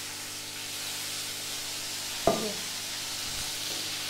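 Hot oil and water sizzling in a pan of frying chicken pieces just after water has been poured in, a steady hiss. About two seconds in, the metal skimmer knocks once sharply against the pan.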